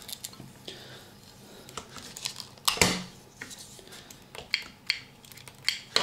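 Small clicks and scrapes of a plastic rotary coax stripping tool being worked around RG59 cable, with a louder knock about three seconds in and another near the end.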